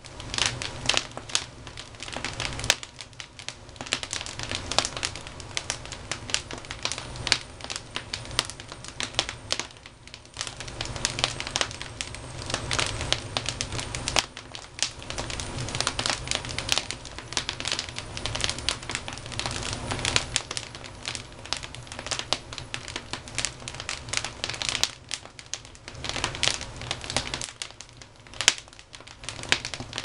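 Wood logs burning on a fireplace grate, crackling with a dense, irregular run of sharp pops and snaps, some louder than the rest.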